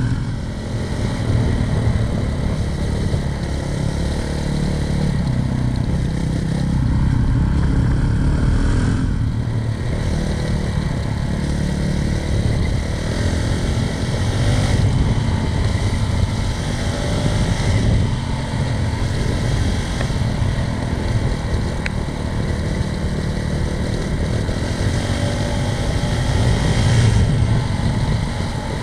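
Honda CRF450RL dual-sport motorcycle's single-cylinder four-stroke engine running under way at a steady cruising pace, its revs rising and easing with the throttle.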